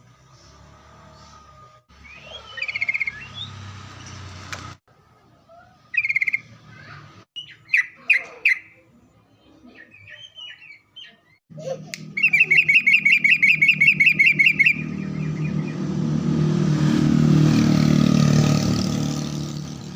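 Yellow-vented bulbul (trucukan) calling in short bubbly phrases, then a fast run of repeated chirps about twelve seconds in. A low rumble swells and fades near the end.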